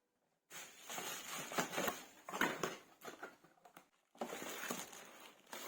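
Rustling and crinkling of packaging being handled, with irregular small knocks. It cuts to dead silence briefly at the start and again about four seconds in.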